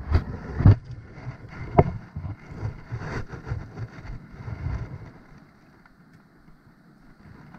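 Scattered knocks and rustling from handling a freshly caught fish and freeing the lure from it, over a low rumble of wind on the microphone. The handling sounds die away about five seconds in.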